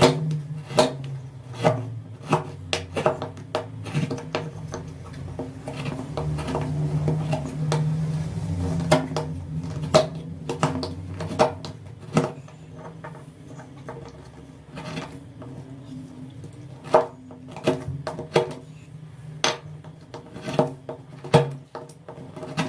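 Wood being worked with hand tools while carving a wooden spoon: irregular sharp knocks and taps with scraping between them. A low hum runs underneath, stronger in the first half.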